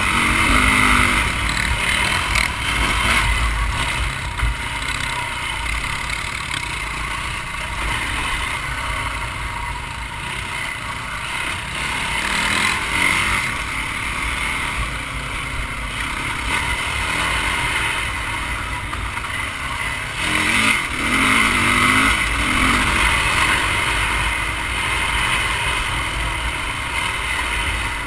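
Yamaha dirt bike engine running under way on a dirt track, heard from a helmet camera with wind noise. The revs rise briefly a little past twenty seconds in.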